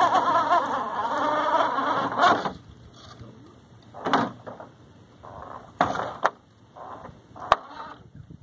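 Axial SCX10 II RC rock crawler's small electric motor and gears whining in a warbling burst for the first two seconds or so, as the truck works up a rock crevice. A few shorter bursts and a sharp click follow.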